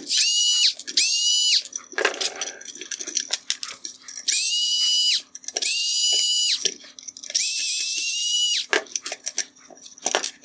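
Small electric screwdriver whining in five short runs, each spinning up quickly to a steady high pitch, as it backs T10 Torx screws out of the headlight's inner bracket. Small clicks and taps of screws and parts come between the runs.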